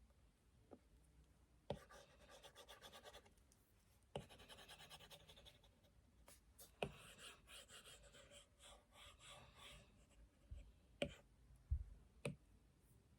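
Drawing strokes scratching across a surface in three runs of quick back-and-forth strokes, each beginning with a sharp tap. Near the end come a few separate taps and a couple of dull knocks.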